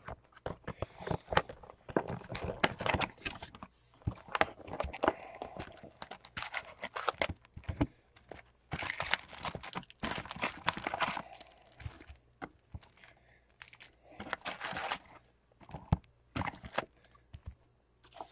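Plastic wrapping crinkling and tearing, with clicks and taps from handling, as a box of trading card packs is unwrapped and opened. The crackling comes in irregular spells, loudest for a couple of stretches in the middle.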